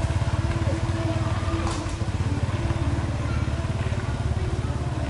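A small engine idling: a steady low rumble with a fast, even pulse.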